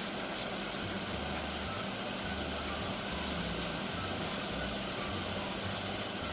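Heat gun blowing hot air steadily, with a constant low hum under an even rush of air. It is heating a charging port on a circuit board to melt the solder beneath it.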